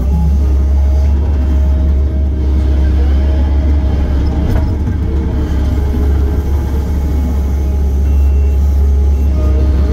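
Diesel engine of a piece of heavy earthmoving equipment running steadily, a deep, even rumble with no pauses.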